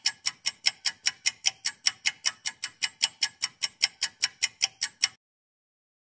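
Clock ticking: fast, even ticks, about five a second, that stop about five seconds in.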